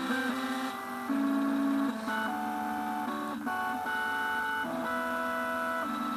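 CNC machine stepper motors whining at musical pitches, several notes sounding at once and stepping from note to note to play a slow melody.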